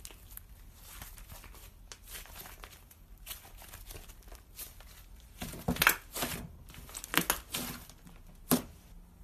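Crinkling and crackling handling noises, with a few louder crackles about six, seven and eight and a half seconds in.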